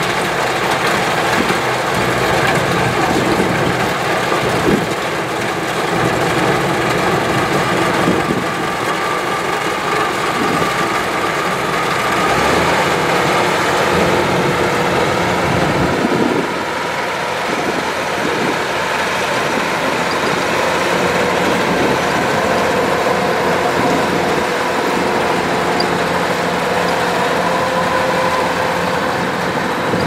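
Kubota DC-105X rice combine harvester running steadily as it cuts ripe rice, its diesel engine and threshing machinery making a loud, even mechanical noise. The tone shifts slightly about halfway through.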